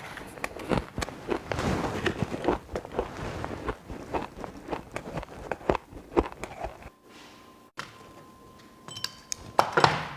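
Close-up crunching and chewing of shaved and hard ice: dense, crackling crunches for about seven seconds, then a pause, then a short burst of crunching near the end.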